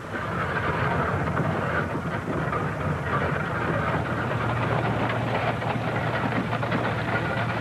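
Horse-drawn wooden wagon pulled by a pair of draught horses rolling along, making a steady, busy clatter and rattle of wheels, wagon body and hooves.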